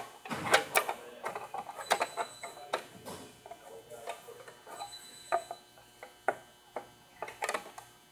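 Irregular plastic clicks and knocks as the cover of an ABB Tmax T6 motor operator is slid and pressed into place on the breaker by hand.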